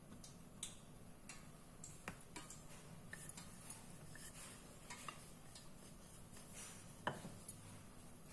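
Faint, scattered light clicks and knocks of a wooden rolling pin on the countertop as small discs of dough are rolled out, with one louder knock about seven seconds in, over a faint low hum.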